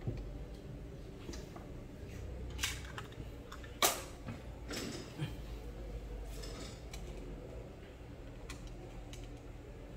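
A few light metallic clicks and clinks of screws being picked out of a metal parts tray, the sharpest a little under four seconds in.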